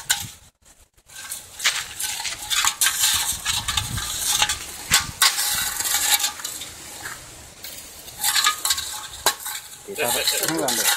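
Aluminium drink can scraping and clinking irregularly over gravelly ground as a snake with its head stuck inside drags it along.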